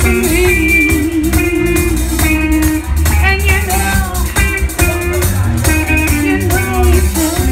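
Live band music: drums and bass guitar under a full band with horns, carrying a lead line that wavers and bends, with a held vibrato note about half a second in.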